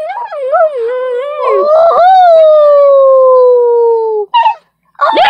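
Dog howling: wavering howls, then one long howl that falls slowly in pitch and breaks off about four seconds in, followed by a short call and another howl starting near the end.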